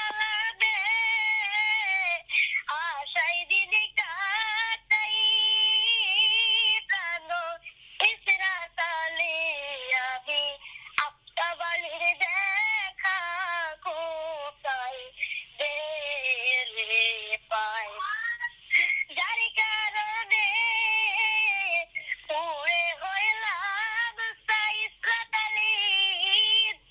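High-pitched, electronically processed voice singing in phrases with short breaks.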